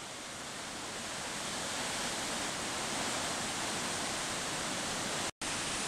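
Steady rushing of a flood-swollen river's white-water rapids. The sound cuts out for an instant near the end.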